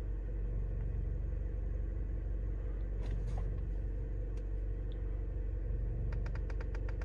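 2006 Scion xB's 1.5-litre four-cylinder engine idling steadily, heard from inside the cabin. A quick run of light clicks comes near the end.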